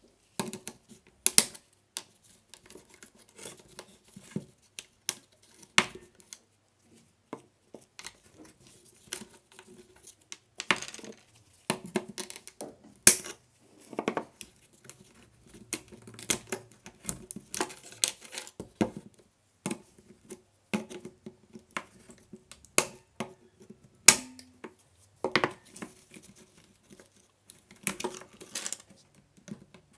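Gloved hands handling a Crown 18V cordless drill's plastic housing and pulling off the wire wrapped around it on a hard table: irregular clicks, taps and scrapes, about one a second, with a few sharper knocks.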